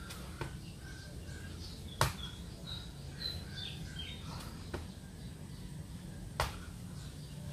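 A person doing burpees: a sharp thump about every two seconds, four in all, as each rep lands on the ground. Birds chirp in the background.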